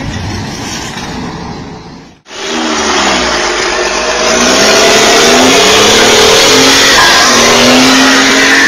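Truck engine revving, its pitch rising and falling over and over, under a loud rushing noise. It starts about two seconds in, after a quieter stretch of engine noise that cuts off abruptly.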